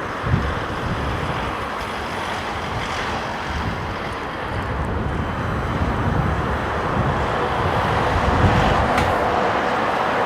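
Strong gusty wind buffeting the microphone, with the GE90 jet engines of an approaching Boeing 777-300ER growing slowly louder beneath it toward the end.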